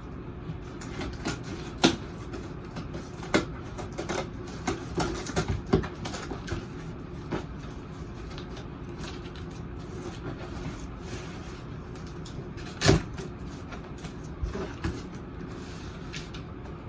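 A cardboard shipping box being cut open with scissors and handled: scattered knocks, taps and scrapes, the loudest a single thump about 13 seconds in, over a steady low hum.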